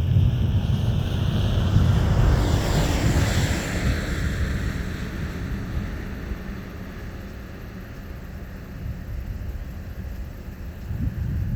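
Cessna Turbo Skylane single-engine propeller plane under takeoff power going past, its engine and propeller sound dropping in pitch as it passes about three seconds in. It then fades steadily as it climbs away.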